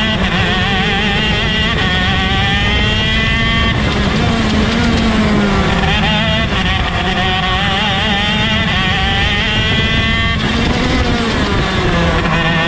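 A ROK Shifter kart's two-stroke engine racing, heard from on board. The engine note climbs steadily in pitch under acceleration and falls back sharply about four seconds in and again near ten seconds.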